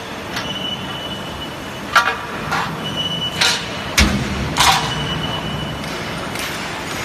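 Strut channel roll forming line running with a steady drone, broken by about half a dozen sharp metallic clanks, loudest about two and four seconds in, and a thin high whine that comes and goes.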